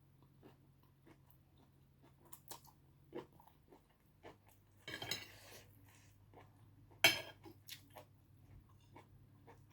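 Close-up eating sounds: someone chewing rice noodles, with small wet mouth clicks and light clinks of cutlery and dishes. Two louder noisy bursts come near the middle and about three-quarters of the way through.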